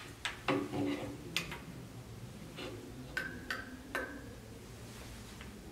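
A series of small clicks and light knocks as the receiving-bottle support and glass receiving flask of a rotary evaporator are handled and fitted on the stand rod, three of them near the middle followed by a brief ring.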